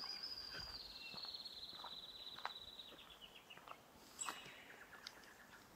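A bird calling: one long trill that falls slowly in pitch over about three and a half seconds, then a short sharp high note about four seconds in.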